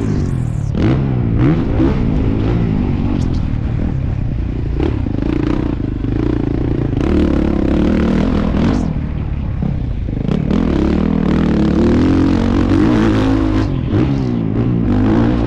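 Honda CRF450RW's 450 cc four-stroke single-cylinder engine heard from onboard, revving up and dropping back again and again as the rider works the throttle through the gears, with a few short clattering knocks from the bike on the rough track.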